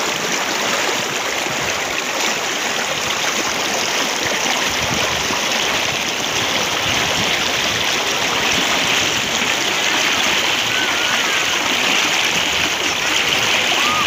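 Muddy floodwater rushing down a swollen village stream after a downpour: a steady rushing and splashing that grows a little louder in the second half.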